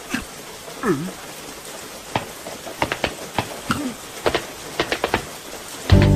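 Cartoon rain: irregular raindrop ticks and drips, with a short swooping cartoon vocal sound about a second in and another brief one later. A loud pitched burst starts just before the end.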